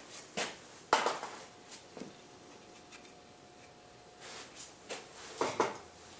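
Light clicks and rustling as an engine's oil pickup tube and its new seal are handled by hand, the sharpest click about a second in and a cluster of handling noises near the end, over a faint steady hum.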